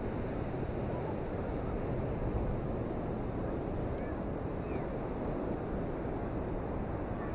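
Steady rush of storm wind buffeting the microphone, mixed with surf breaking on the beach: the wind of Hurricane Helene.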